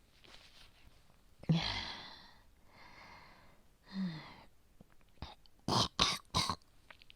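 A woman coughing from a worsening chest infection with heavy yellow-green phlegm: a single cough, a breath, another cough, then a quick run of three short coughs near the end.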